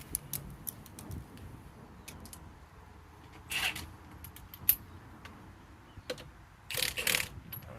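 Scattered metallic clicks and a few short rattles as a lug nut and tools are handled while a wheel is being mounted on its studs, with one sharper click about halfway through.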